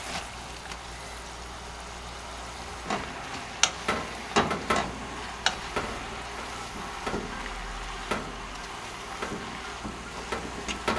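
Strips of fish cake (eomuk) sizzling in a frying pan of boiling soy-based sauce as they are stirred and turned with a wooden spatula: a steady sizzle with sharp knocks and scrapes of the spatula against the pan, thickest from about three to six seconds in.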